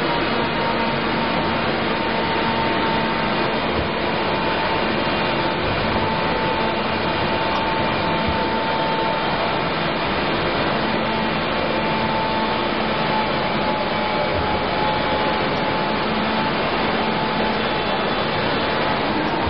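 Semi-automatic folder gluer for corrugated boxes running steadily: a constant machine drone with a steady high whine over it as the folded boxes are conveyed into the stacker.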